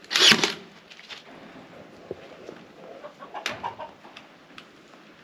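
Cordless stapler firing staples through wire mesh into a wooden frame: one loud, sharp shot at the start, a fainter one about a second in, and a few smaller clacks about three and a half seconds in.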